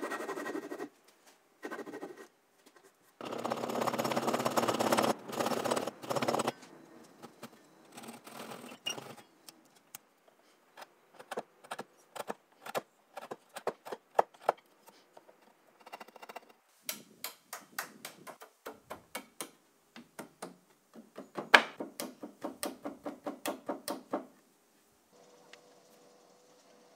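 Backsaw cutting through hardwood in a handful of strokes, then a chisel paring the cut, heard as many sharp clicks and knocks, with a quick run of about four a second near the end.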